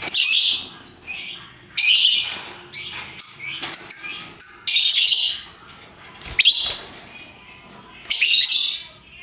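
Lovebirds calling: a string of about seven harsh, high-pitched calls, each half a second to a second long, with short thin chirps in between.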